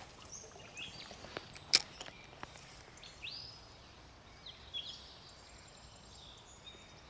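Birds chirping and whistling over a faint steady hiss of running water, with a few sharp clicks, the loudest a little under two seconds in.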